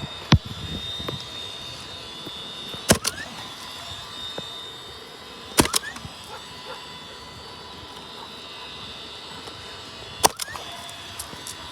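Nail gun firing roofing nails through an asphalt shingle: sharp single shots a few seconds apart, about four in all, one of them a quick double.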